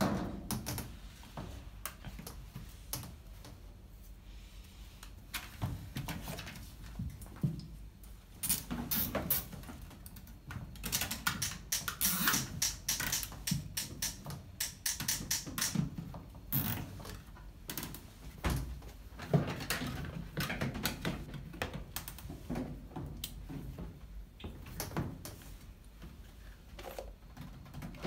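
Scattered clicks, taps and knocks of hands and pliers working at the base of a top-load washing machine as the drain hose is refitted to its outlet, thickest a little before the middle.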